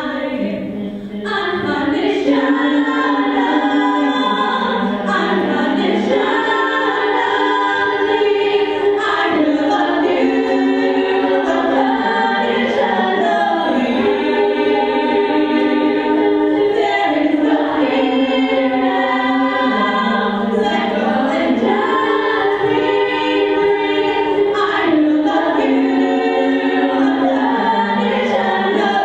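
All-female a cappella group singing live: a lead voice over backing singers holding sustained vocal chords, the phrases changing in a repeating pattern about every four seconds.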